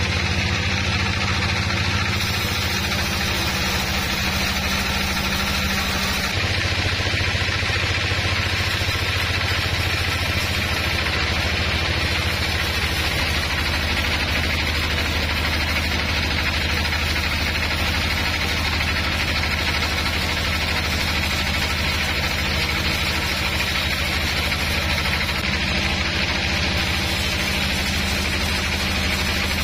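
Vertical band sawmill running: a steady motor hum with the continuous rasp of the band blade sawing through a large log, changing in tone about six seconds in.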